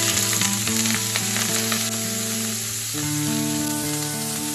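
Chopped celery stalks sizzling as they hit hot oil in a stainless steel frying pan and are stirred with a wooden spatula; the sizzle is strongest over the first three seconds, then eases. Background music plays throughout.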